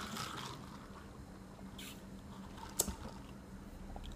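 Quiet sipping of soda tea through a plastic straw, with a brief slurp about two seconds in and a sharp click shortly after.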